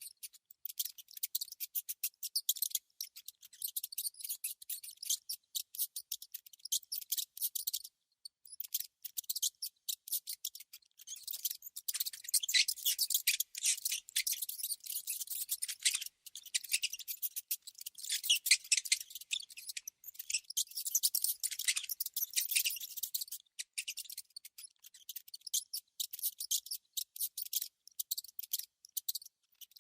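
Rodent making rapid, high-pitched clicking chatter in quick runs with brief gaps, busiest in the middle stretch.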